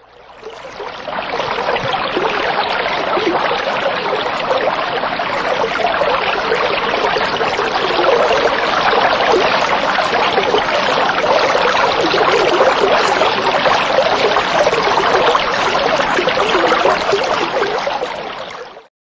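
Running water, a steady rushing like a stream, fading in at the start and fading out shortly before the end.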